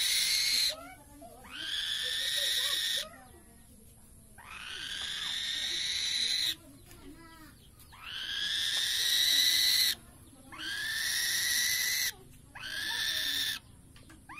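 Young bird of prey screeching over and over: about six long, harsh, hissing screeches, each lasting one to two seconds, with short pauses between.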